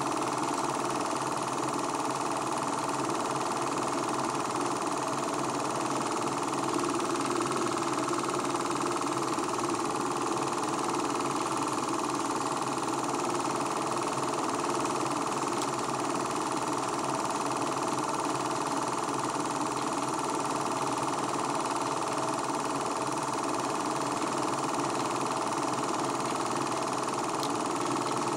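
Film projector running: a steady mechanical whir and clatter from the film transport, unchanging throughout.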